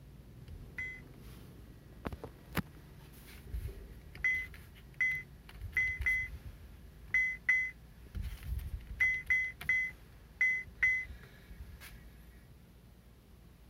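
CASKA CA 3631 car head unit giving about a dozen short high beeps, singly and in quick pairs, each acknowledging a key press or screen touch. A few dull knocks from handling come in between.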